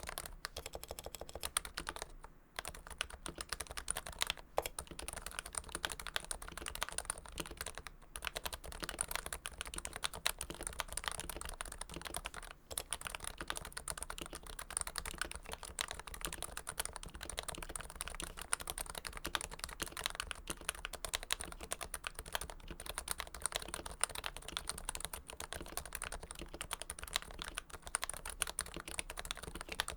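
Steady, continuous typing on a Realforce keyboard with Topre electro-capacitive switches lubed with Krytox 105, a dense run of keystrokes broken by short pauses about 2, 8 and 12 seconds in.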